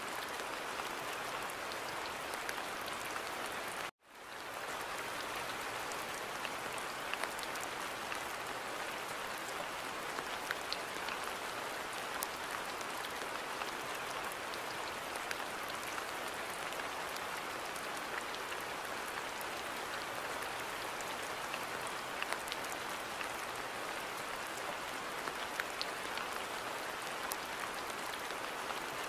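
Steady rain: a dense, even hiss with scattered sharp ticks of single drops. About four seconds in it cuts to silence for an instant and fades back in.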